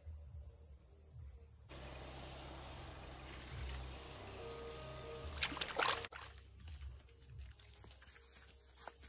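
Steady high-pitched insect buzzing over a hiss. It starts abruptly about two seconds in and cuts off just as abruptly about six seconds in, with a few sharp clicks just before it stops. Around it lies faint outdoor background with a low rumble.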